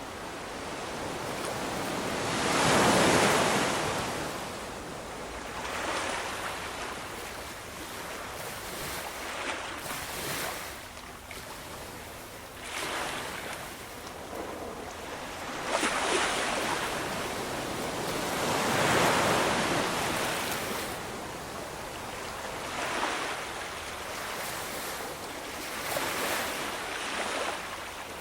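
Ocean waves breaking and washing up on a shore, the surf swelling and falling in irregular surges, the biggest about three seconds in and again near the middle.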